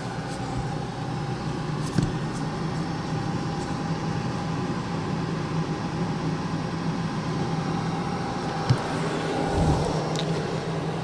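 Car engine running steadily, heard from inside the cabin, with a low even hum. Two brief knocks come about two seconds in and again near the end.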